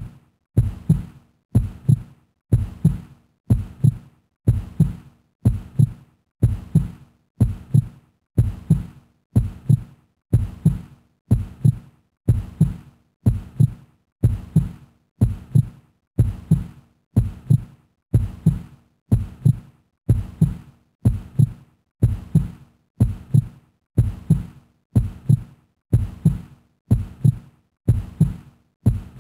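Heartbeat sound effect: a low double thump, lub-dub, repeating steadily about once a second.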